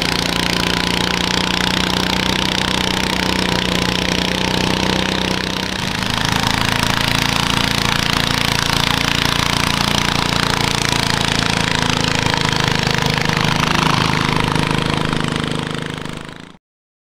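A garden tractor's small engine running hard and steady as it hauls a pulling sled. It dips briefly about six seconds in, then fades out near the end.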